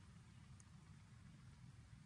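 Near silence: faint, steady low background hum.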